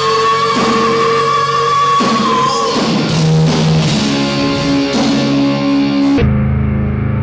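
Live rock band playing, recorded loud and rough: electric guitar, drums and a female singer holding a long high note over the first couple of seconds. About six seconds in the sound cuts abruptly to a muffled, steady low droning chord.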